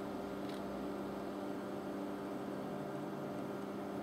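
Steady room hum: a constant low drone made of a few held tones under a faint hiss, with one faint click about half a second in.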